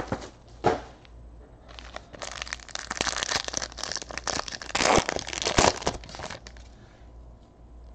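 Foil trading-card pack wrappers crinkling and crackling as the packs are handled and torn open. The crackling is densest from about two to six and a half seconds in, with a few sharp cracks around five seconds.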